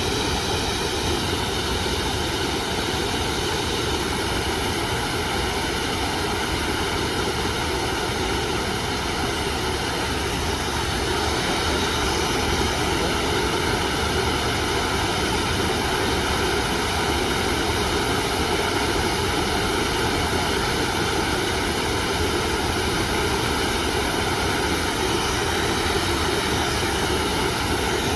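Garden waterfall rushing steadily, a dense even wash of falling water that grows slightly louder after the first third.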